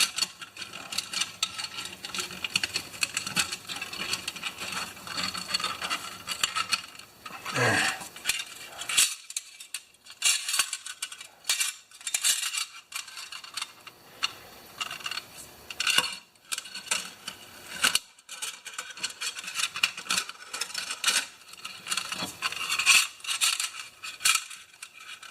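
Parts of a Honda HR214 mower's recoil starter handled by hand as the rewind spring and pulley are worked into the housing: irregular light metallic clicks, clinks and scrapes.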